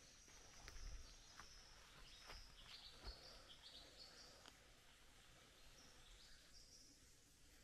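Very quiet bush ambience: faint, high, thin calls that step up and down in pitch come and go, over a low steady hiss. A few soft crunches, most likely footfalls on the track, sound in the first half.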